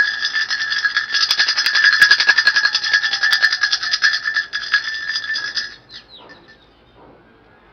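Small handheld bell shaken fast in a continuous jangling ring, stopping sharply about three-quarters of the way through.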